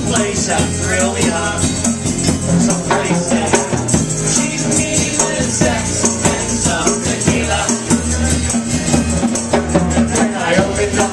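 Live band playing a song: strummed acoustic guitar, electric bass and drum kit, with a hand tambourine jingling along throughout. Singing near the start and again near the end.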